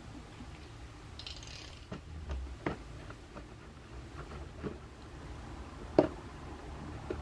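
Snap-off utility knife being handled against a cardboard box: scattered sharp clicks and taps from the knife's blade slider and its point on the cardboard and tape, the sharpest about six seconds in.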